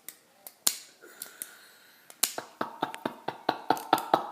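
A few sharp, separate clicks, like the tail switch of a tactical pen-light being pressed. About two seconds in, a fast staccato "ha-ha-ha" laugh begins, about five pulses a second, and keeps going: a fake laugh.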